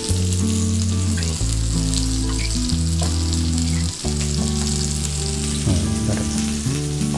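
Semolina-coated stuffed pomfret shallow-frying in oil in a pan, with a steady sizzle.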